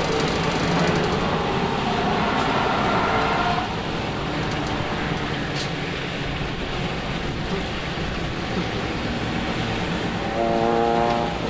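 Lexus IS300's inline-six engine heard from inside the cabin over road and wind noise, pulling hard at first. It eases off a little over a third of the way in, then picks up again briefly near the end.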